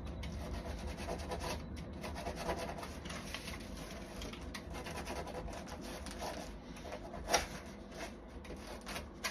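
A blade cutting through stiff sisal rope, a continuous scratchy rasp of fibres being sawn and severed, with a sharp click about seven seconds in.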